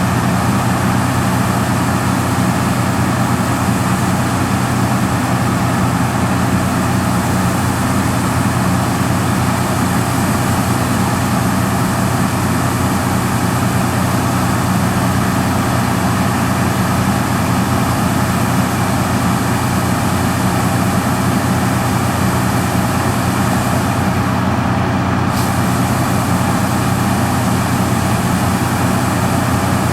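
Heavy farm machinery engine running steadily at working speed, an unbroken drone with no pauses.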